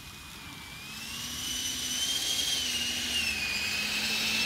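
Electric ducted fan of an HSD F-16 Thunderbird RC jet (105 mm fan on 12S power) whining as the model taxis in on grass. It grows louder from about a second in as it nears, and its pitch rises and dips a little with the throttle.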